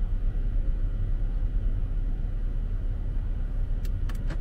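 Steady low road and engine rumble inside a moving car's cabin, with a few light clicks near the end.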